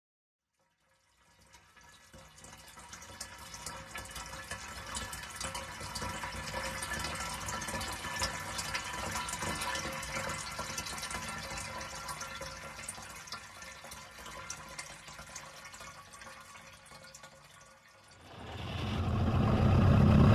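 Flowing, gurgling liquid begins about a second in: animated coolant forced past the radiator cap and running down the overflow hose into the expansion tank. Near the end a car engine starts running and quickly grows louder.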